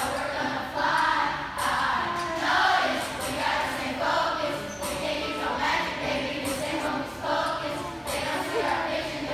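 A group of children rapping and singing in unison, a chorus of young voices over music with a steady beat.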